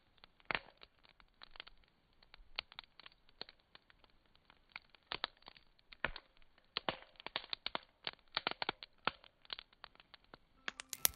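Wood campfire crackling, with irregular sharp pops and snaps. Music comes in near the end.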